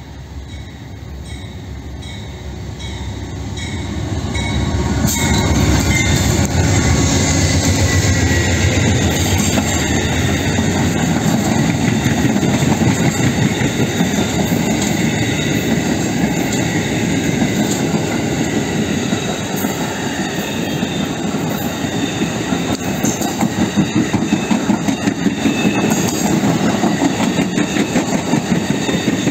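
Amtrak Silver Star passenger train passing close by. The rumble grows over the first few seconds as the locomotive arrives, then holds loud as the cars roll past. Near the end the wheels beat out a steady clickety-clack.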